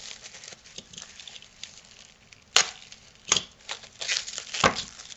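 Clear plastic wrapping crinkling and crackling as a bundle of adapter boards is unwrapped by hand, with three louder snaps in the second half.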